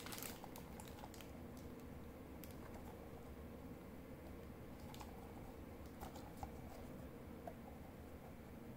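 Quiet handling noise: a few faint, scattered soft clicks and light rustles as hands flex and open the jaws of a soft TPR rubber dinosaur hand puppet.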